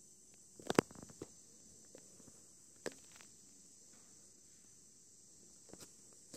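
Sparse light clicks and taps over a faint steady hiss, the loudest a quick cluster about a second in, then single clicks near the middle and a pair near the end: the keys of an audiometer being pressed during a pure-tone hearing test, whose test tones go only to the headphones.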